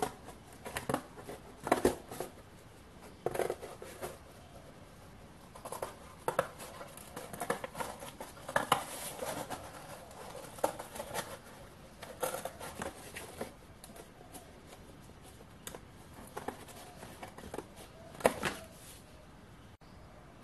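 Scissors cutting through paper glued to thin cardboard, trimming out a circular disc: a run of irregular short snips with pauses between them.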